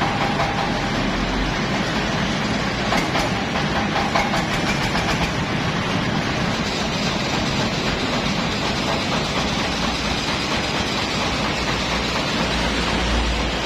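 Mobile rice-milling machine (mesin selep padi) running steadily while milling unhulled paddy rice: a loud, even, continuous mechanical noise.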